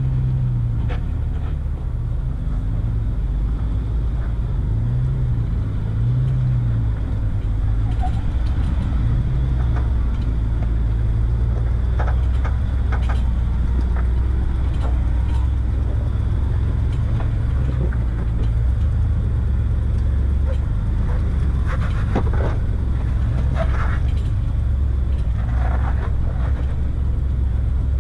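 Off-road 4x4's engine running at low revs as it crawls over slickrock, its note rising and falling over the first ten seconds or so, with scattered knocks and crunches from the rough ground.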